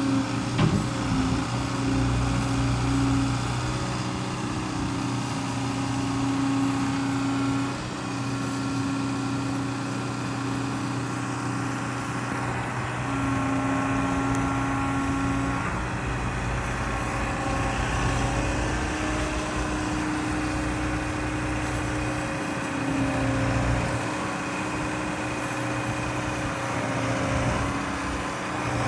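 Liebherr R914 Compact crawler excavator's diesel engine running steadily, with a pitched tone that drops out and comes back every few seconds. A single sharp knock about a second in.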